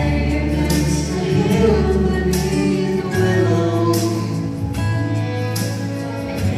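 A male and a female voice singing a duet into microphones over an instrumental accompaniment, with steady low bass notes that change every second or two.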